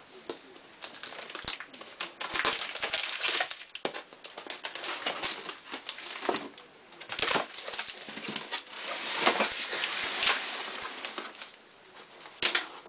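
A cardboard shipping box being opened by hand: packing tape cut and pulled away, then the flaps folded back, with irregular scraping and rustling of cardboard and tape and a few sharp knocks.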